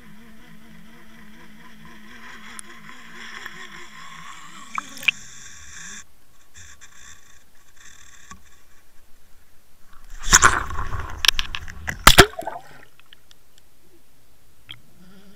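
Underwater fishing camera's housing picking up a steady low engine-like hum for the first few seconds. About ten seconds in there are a couple of seconds of loud knocks and scraping with water sloshing against the housing.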